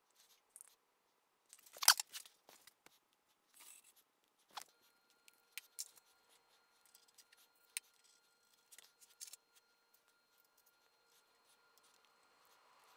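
Sparse small metal clicks and taps from hand work on a Bridgeport Series 1 milling machine head, the loudest a sharp click about two seconds in. A faint steady high whine comes in about four and a half seconds in.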